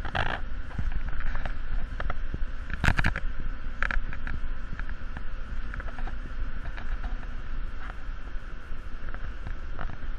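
Steady low rumble and hiss of cleanroom air handling, with a faint steady tone in the midrange. A few brief rustles sit on top, the loudest about three seconds in.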